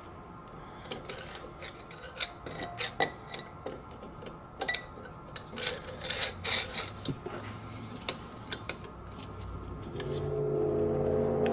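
Metal clinking and scraping as the finned cylinder barrel of a Coleman 125 ATV engine is worked down over the head studs and onto the piston, with scattered taps and rubs while it is being lined up. A steady low hum swells in near the end.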